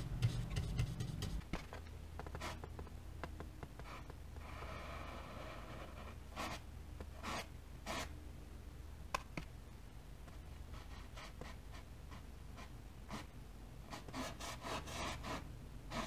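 Faint rubbing of a small paintbrush dragging acrylic paint across a stretched canvas in short strokes, with one longer stroke about four seconds in, over a low steady hum.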